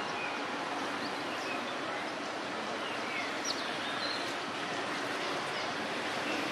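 Steady outdoor background noise, an even hiss, with a few faint short high chirps scattered through it.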